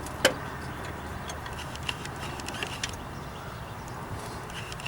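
Sharp metal click about a quarter second in, followed by a few faint scattered ticks and light knocks, as a replacement alternator is handled and worked into place in the engine bay.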